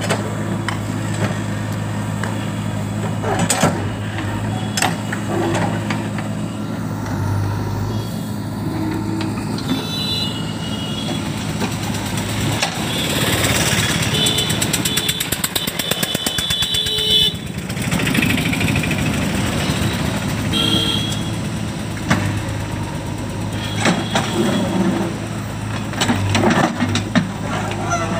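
JCB backhoe loader's diesel engine running steadily while the backhoe bucket digs, with occasional knocks and scrapes of the bucket in dirt and rubble. About halfway through it gets louder for a few seconds, with a fast rattle and a high whine.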